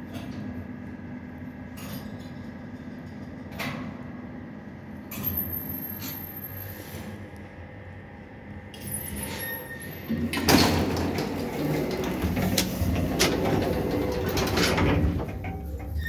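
1977 KMZ passenger lift: a low steady hum with a few sharp clicks, then about ten seconds in the automatic sliding doors run with a loud rattling clatter for around four seconds.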